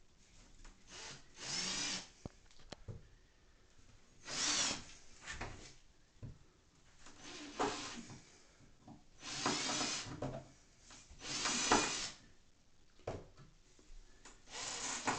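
A power drill runs in about six short bursts of around a second each, with pauses between them, as screws are driven to fasten a grab bar to a tiled wall.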